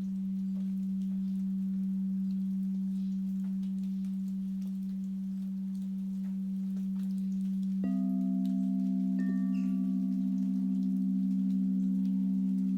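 Quartz crystal singing bowls ringing: one low bowl holds a steady tone, then a second, higher bowl is struck about eight seconds in and rings on with a slight wavering beat, and another light strike adds higher overtones a second later.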